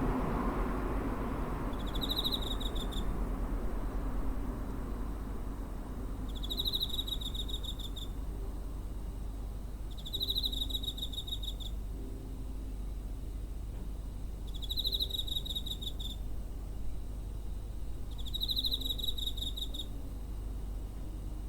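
A cricket chirping: a high trill about a second long, given five times at intervals of about four seconds, over a steady low hum. A broad rumbling noise fades away in the first two seconds.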